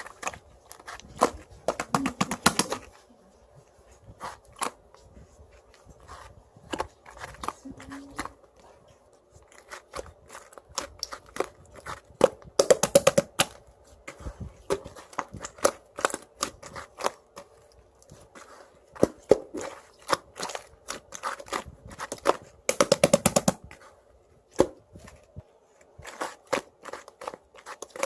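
Clay slime being pressed and squished by hand, giving sharp crackling pops of trapped air. Scattered single pops, with three bursts of rapid popping about two, thirteen and twenty-three seconds in.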